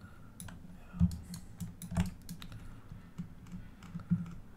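Irregular clicks and taps of a computer keyboard and mouse, a dozen or so spread unevenly, some with a dull knock on the desk.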